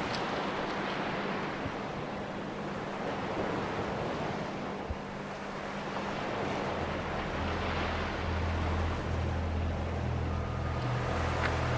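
Sea waves breaking and washing on a beach, swelling and falling away in slow surges. About two-thirds of the way in, a low steady drone comes in, joined near the end by faint held higher tones.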